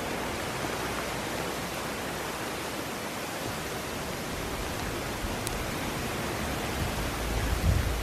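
Steady, even rushing of water in the forest, from rain or the nearby stream, with a low rumble near the end.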